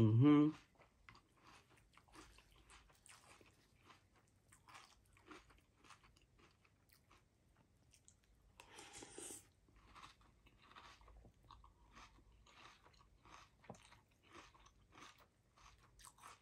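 A person chewing a mouthful of crunchy Fruity Pebbles cereal in milk, with soft, irregular crunches. About nine seconds in there is a brief louder, noisier sound.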